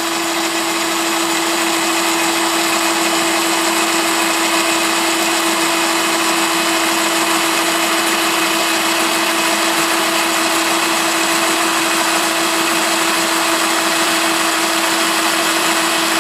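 Cordless drill motor running at a steady speed, its 4 mm tile drill bit grinding a hole into a ceramic tile: an even motor whine over a constant gritty hiss. The bit is biting in much more easily than a concrete bit does.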